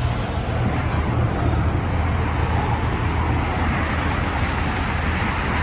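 A car moving: steady engine and road noise with a low rumble.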